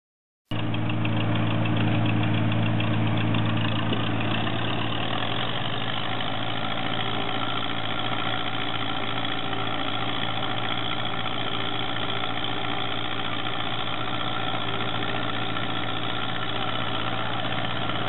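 Belarus MTZ tractor diesel engine idling steadily, cutting in about half a second in with a low, even hum.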